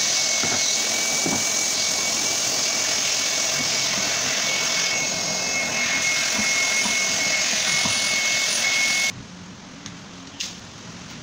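A machine runs loudly and steadily with a thin, high whine over a hiss. It cuts off suddenly about nine seconds in, leaving quiet room sound with a light knock.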